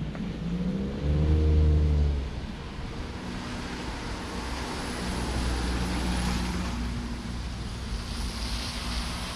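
A motor vehicle's engine running nearby: a low hum that is loudest and bends in pitch between about one and two seconds in, then settles into a steadier, quieter drone.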